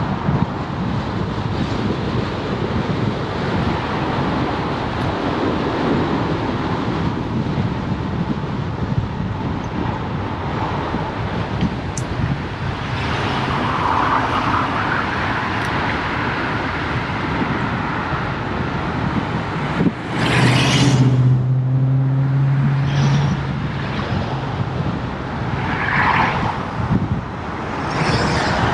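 Road traffic heard from a moving bicycle, with a steady rushing road noise throughout. About two-thirds of the way through a vehicle goes by close with a loud rush, leaving a steady low engine hum for a couple of seconds, and more vehicles pass near the end.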